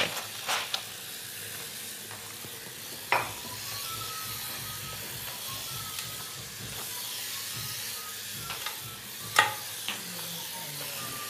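Clothes being scrubbed by hand in a sink basin: a steady wet hiss of rubbing fabric and water, with a few sharp knocks, the loudest about nine seconds in.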